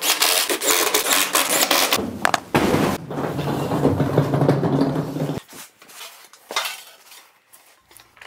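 Power saw cutting an OSB panel: a dense rattling cut for about two seconds, then a steadier motor hum that stops about five seconds in, followed by light clinks and knocks.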